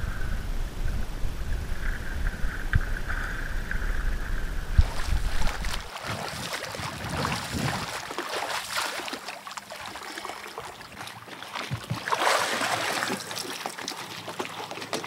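Low rumble of water and wind on an action camera held at the sea surface. About six seconds in it gives way to splashing water as a snorkeler kicks along with fins and climbs out up a boat's stern steps.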